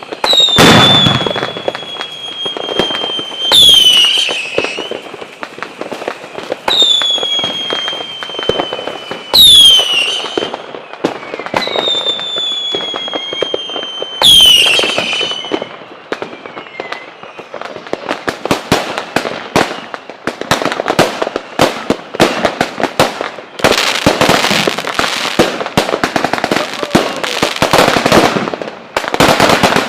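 Fireworks: about six whistling shells, each a high whistle sinking slightly in pitch for two or three seconds and ending in a sudden bang. From about halfway on, dense rapid cracking of firecrackers.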